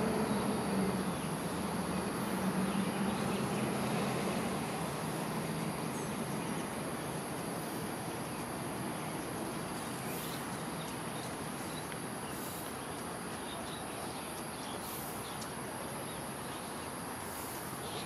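Insects shrilling steadily at a high pitch over a broad outdoor hum of the city, with a lower rumble that fades out over the first five seconds or so.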